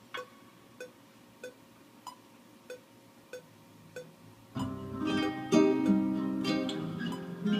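Faint metronome click track ticking about one and a half times a second, a higher click on every third beat; about four and a half seconds in, a nylon-string classical guitar comes in, playing chords and notes in time with it.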